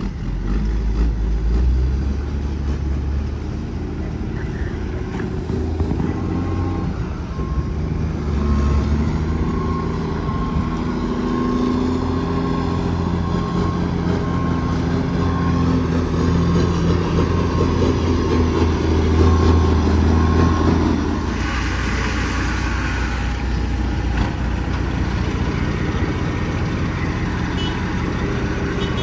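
Diesel engine of a loaded tractor-trailer dump truck pulling slowly, its pitch rising and falling. About 21 seconds in, the engine eases off and a burst of air-brake hiss lasts about two seconds, then the engine idles steadily.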